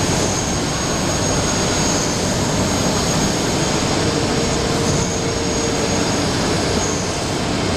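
CNC machine running: a loud, steady rush of noise with a thin high whine that comes and goes over it.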